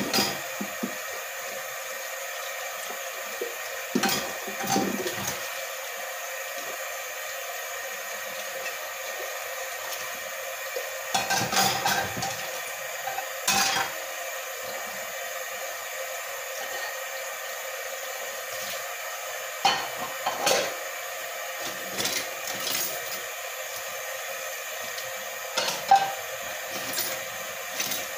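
Hand dishwashing at a kitchen sink: tap water running steadily, with pans, a lid and cutlery knocking and clinking now and then as they are scrubbed and rinsed.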